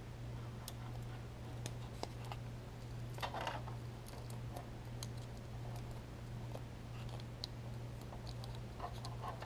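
Faint crinkling and small clicks of blue tape being wrapped and pressed around a wire end and coat hanger, with a brief louder rustle about three seconds in. A steady low hum runs underneath.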